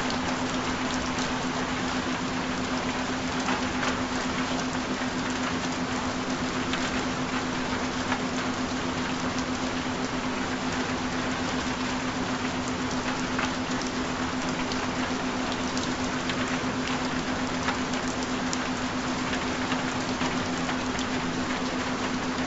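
Steady rain recording, an even hiss of falling rain with faint scattered drop ticks. Under it runs a constant low hum tone, the steady binaural tone of a subliminal track.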